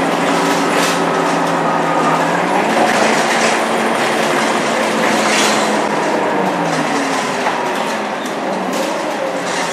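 Inside a Scania K230UB bus under way: the diesel engine and ZF 6HP502C automatic gearbox running, heard as a steady drone with whining tones that shift in pitch, plus occasional clicks and rattles from the cabin.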